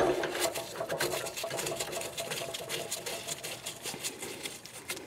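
Rapid light clicking and rattling of metal parts as a fuel oil filter canister and its centre bolt are handled and fitted into place by gloved hands, fading near the end.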